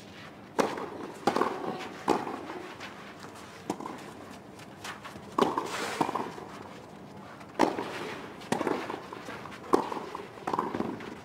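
Tennis ball struck back and forth by rackets in a doubles rally, sharp pops roughly one a second.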